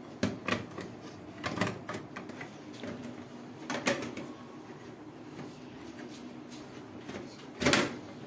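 DVD optical drive being slid and pushed into the sheet-metal drive bay of a desktop computer case: scattered metal clunks and scrapes, with a louder knock about four seconds in and the loudest near the end.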